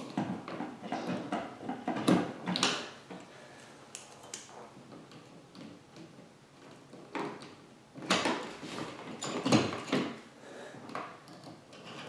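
Copper wires and pliers scraping and clicking against a plastic electrical box as the wires are pushed into connectors inside it. The handling comes in bursts, quieter for a few seconds in the middle and loudest about nine and a half seconds in.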